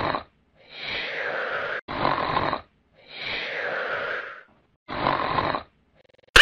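Cartoon snoring sound effect for a sleeping T-rex: a slow, regular cycle of a long breathy snore followed by a shorter, harsher one, repeating about every two and a half seconds.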